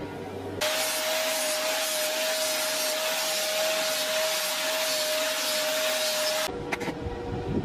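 Electric angle grinder running with a steady whine while a graphite rod from a battery, held in pliers, is ground to a point against its disc, giving a loud even hiss. It starts abruptly about half a second in and cuts off about six and a half seconds in, followed by a few light clicks.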